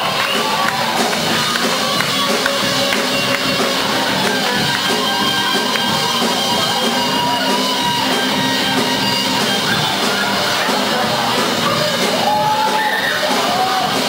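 Electric guitar playing a rock lead solo with bent notes over a full rock accompaniment.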